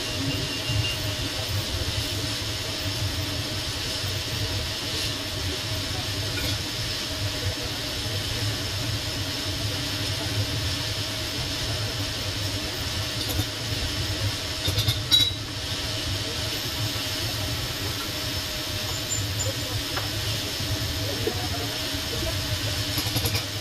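Steady TIG welding on stainless steel pipe: a continuous arc hiss over a constant machine hum, with a brief louder noise about fifteen seconds in.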